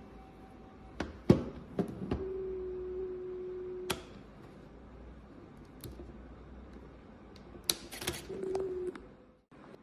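Olympus OM-D E-M10 Mark III mirrorless camera, damaged in a fall, clicking several times and then making a steady motor-like buzz for about two seconds that ends in a click; near the end another quick run of clicks and a shorter buzz. The camera has been making this abnormal noise since the drop, and it shuts off when the shutter is released.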